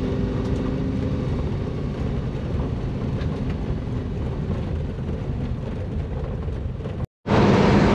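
Inside the cabin of a car with a Toyota 1UZ-FE V8 driving at about 30 km/h: a steady mix of engine running and road noise. The sound drops out completely for a moment about seven seconds in, then comes back louder.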